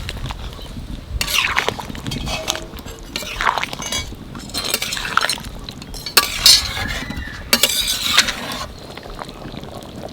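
A metal serving spoon clinking and scraping against a metal cooking pot and dishes, in about six separate clatters with brief ringing.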